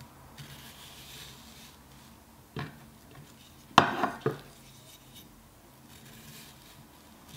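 Bunka kitchen knife with a ZDP-189 steel blade slicing an onion on a wooden cutting board: soft hissing strokes as the blade slides through the layers, one knock of the edge on the board a little before the middle, and a louder cluster of three quick knocks around the middle.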